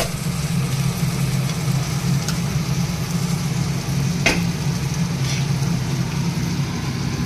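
Food frying in a steel kadai as a spatula stirs it, over a steady low hum. A single sharp knock sounds about four seconds in.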